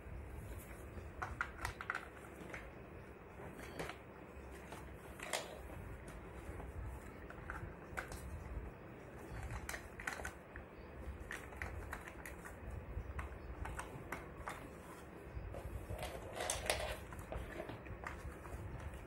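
Hard plastic parts of a Luvlap Comfy baby walker's frame and wheel housings clicking and knocking as they are handled and fitted together by hand, in irregular clatters, with the loudest knocks about five seconds in and near the end.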